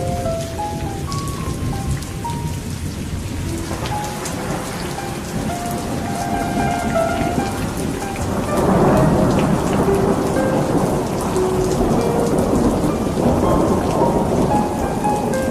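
Steady heavy rain, with thunder rolling in about halfway through and rumbling louder to the end. A soft melody of single held notes plays over the rain.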